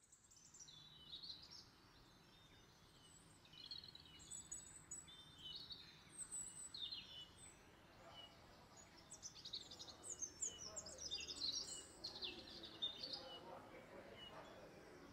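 Birds chirping and singing, many quick high calls following one another, busiest about two thirds of the way through. A faint murmur of voices sits under them in the second half.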